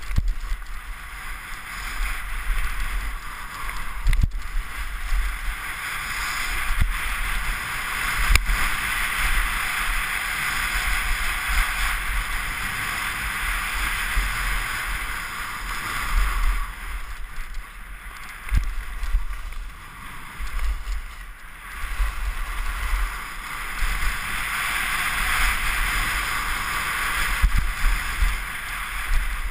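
Skis carving down a packed-snow piste: a hissing scrape of the edges that swells and fades from turn to turn, with wind rumbling on the microphone and a few sharp knocks as the skis hit bumps.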